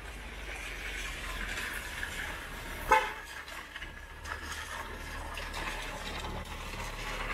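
A single short, loud vehicle horn toot about three seconds in, over a steady hiss of street noise.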